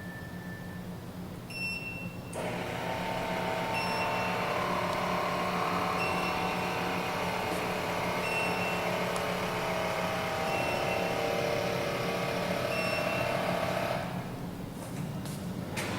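Glen GL 6074 kitchen chimney's blower fan starting about two seconds in and running steadily with a whirring hum, then dropping away near the end. Short electronic beeps from the chimney's controls sound about every two seconds.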